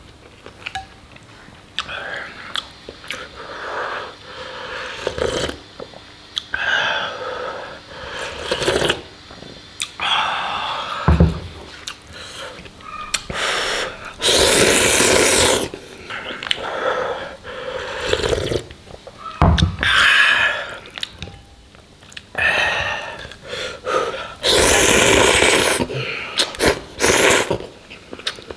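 A man eating noodles in broth: repeated slurping and chewing, with two long, loud slurps of noodles, one about halfway through and one near the end.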